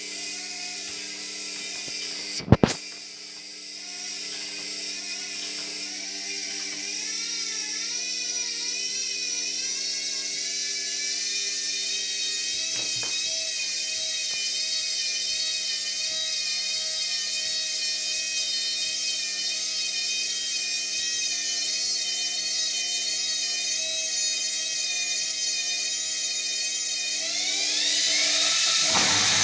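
Hotpoint washing machine's drum motor whining as it turns the drum to distribute the laundry before the spin. Its pitch wavers and slowly climbs, with a sharp click about two and a half seconds in. Near the end the whine sweeps quickly upward as the drum speeds up.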